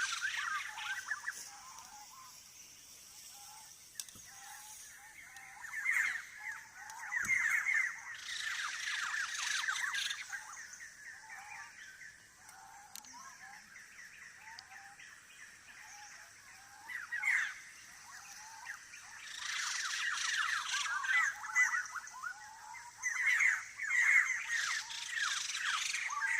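Early-morning forest birds calling: bursts of rapid chirping that come and go, loudest in the second half, over softer short whistled notes.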